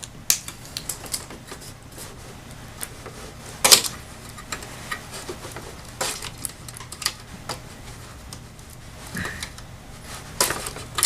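Scattered light clicks and taps of hands handling small plastic and metal parts and wires inside a disassembled LCD monitor, with a sharper knock a little under four seconds in, over a faint steady low hum.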